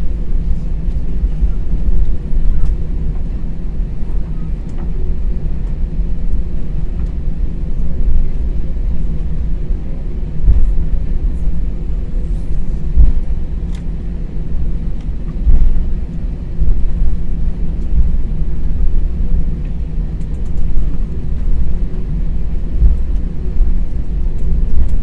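Airbus A320 cabin noise while taxiing: the engines and the rolling of the airliner make a steady low rumble with a faint hum. A few low thumps come through near the middle.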